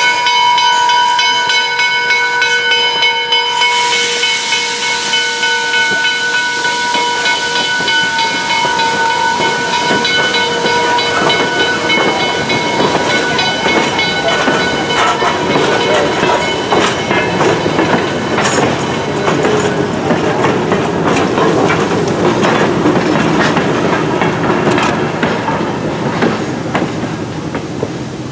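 Steam locomotive's six-chime boiler-tube whistle blowing one long chord over loud steam hiss as the engine passes, the whistle fading out about halfway through. Then the passenger cars roll by, their wheels clicking over the rail joints, and the sound fades near the end.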